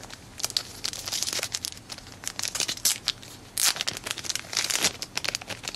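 Trading cards being handled and flipped through, with irregular crinkling and rustling; the loudest rustles come about three and a half and five seconds in.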